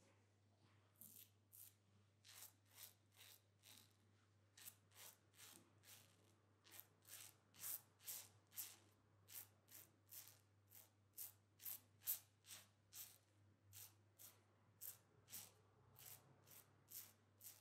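Safety razor scraping stubble through shaving cream in short, quick strokes, about two a second, each a brief dry rasp.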